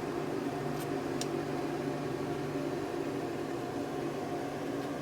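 Steady electric fan hum with a fixed pitch, and two faint light clicks about a second in.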